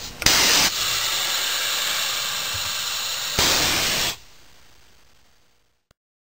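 Compressed air hissing from an Omal hinge boring and insertion machine's pneumatic system. A sharp burst of air comes about a quarter second in, then a steady hiss, then a second, louder blast of air about three and a half seconds in, after which the hiss dies away.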